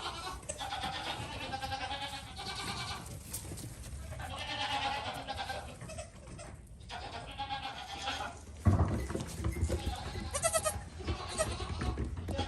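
Goats bleating, several quavering calls one after another. A louder low rumble comes in about two-thirds through, under further bleats.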